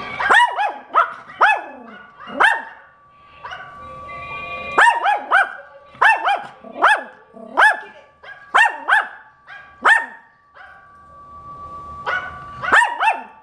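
Yorkshire terrier barking in rapid sharp yaps, in three bursts with short pauses between, mixed with her own recorded barks played back through the computer's speakers. A faint steady tone runs underneath.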